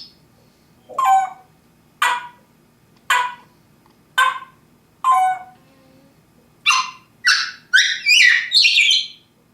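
Parrot calling: five short, pitched calls about a second apart, then a quicker run of higher, rising calls near the end.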